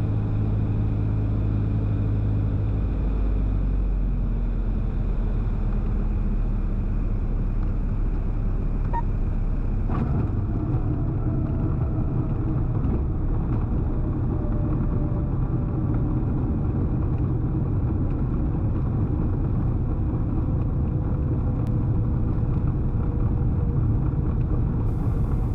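Cessna 177RG Cardinal's engine and propeller running steadily, heard from the cockpit. About three seconds in, the engine note drops as power comes back. From about ten seconds a rougher rumble takes over, with a faint, slowly falling whine.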